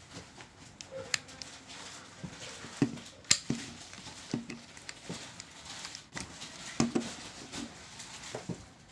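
Irregular plastic clicks and knocks as a GoPro Hero 5 Black is pressed into its black plastic protective case and handled on a wooden tabletop. The sharpest clicks come about three seconds in and again near seven seconds.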